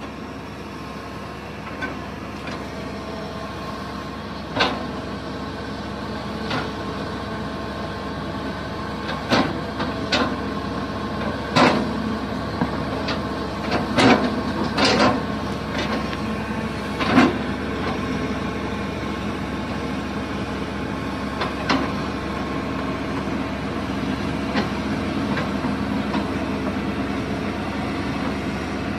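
A Hitachi crawler excavator's diesel engine runs steadily and grows a little louder. Its tracks crawl over a mat of logs on swampy ground, giving about ten sharp, irregular knocks and clunks, most of them in the middle of the stretch.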